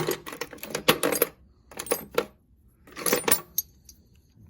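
Old knobs clinking and rattling against each other as they are rummaged through by hand, in three short bursts.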